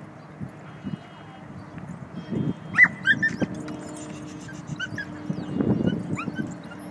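A dog giving a run of short, high yips and whines, falling in pitch, starting about three seconds in. The first one is the loudest.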